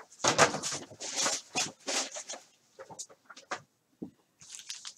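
Foil trading-card pack wrappers being handled and torn open: irregular bursts of crinkling and ripping, thinner and quieter after the middle.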